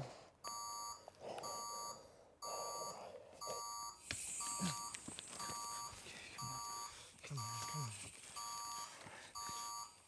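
Electronic alarm beeping: short clusters of rapid high beeps repeating about every three quarters of a second. A man's low voice sounds are underneath.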